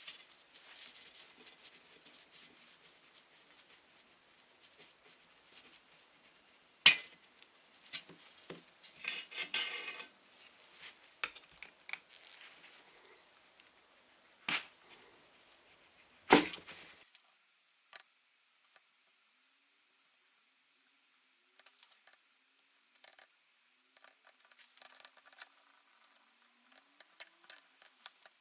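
Steel toy truck parts and hand tools clinking and knocking while the toy is taken apart. A few sharp knocks stand out, the loudest about seven seconds in, with scraping and rattling between them and light clinks near the end.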